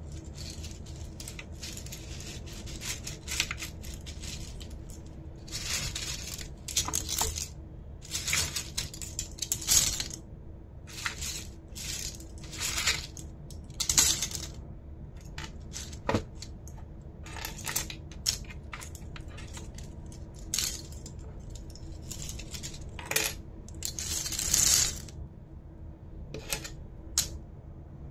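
Hard plastic keyboard parts being handled: irregular clicks and clinks with short rattling scrapes, the longest about a second, near the end.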